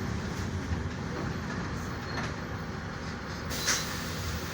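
Mercedes-Benz OF-1418 bus's six-cylinder diesel engine running steadily under way, with road and body noise, heard from inside the cabin. A brief louder rattle comes about three and a half seconds in.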